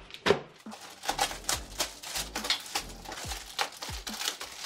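A white plastic mailer bag being torn open by hand: a quick, irregular run of ripping and crinkling plastic.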